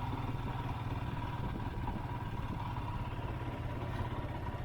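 Royal Enfield Himalayan's single-cylinder engine running steadily under the rider, with wind noise on the action camera's microphone.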